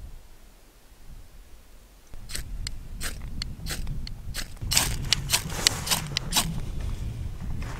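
Knife spine scraped hard down a ferrocerium rod, more than a dozen rasping strikes starting about two seconds in and coming quicker toward the middle. The sparks are thrown into a Trangia spirit burner to light it.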